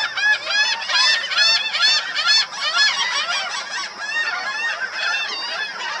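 A flock of black skimmers calling: a dense chorus of short, nasal, honking calls overlapping one another, thinning slightly near the end.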